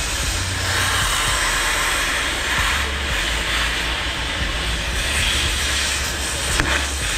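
Cutting torch hissing steadily as it burns through rusted, seized rear shock-absorber bolts on a semi truck, over a low rumble, with a short click near the end.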